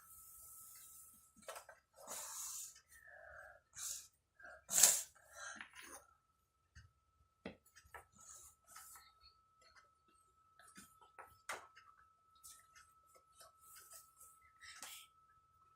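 Scattered light clacks of wooden toy blocks, with a child's sniffly, breathy sounds from a head cold; the loudest is one sharp burst about five seconds in.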